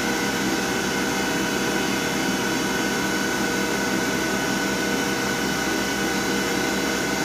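CNC lathe running, its spindle turning the chuck while the tool turret feeds slowly toward the workpiece: a steady machine hum with several steady tones.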